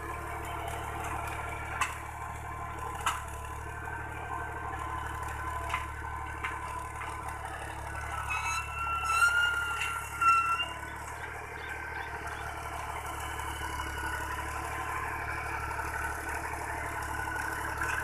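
Fiat 480 tractor's diesel engine running steadily under load while it pulls a tined cultivator through the soil.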